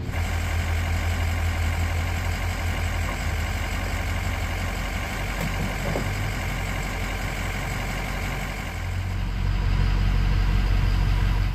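A vehicle engine idling steadily, with a low hum that gets louder about nine seconds in.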